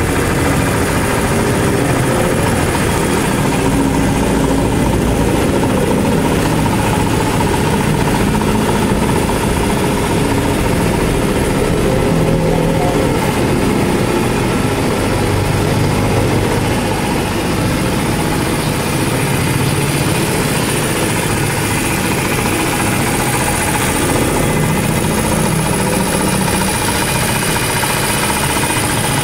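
Honda Monkey Z50 minibike's small single-cylinder four-stroke engine idling steadily.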